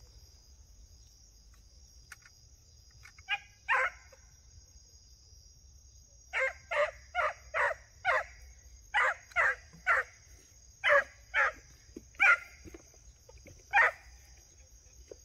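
Hunting hounds barking, a string of short sharp barks that come about two a second, over a steady high chirring of crickets.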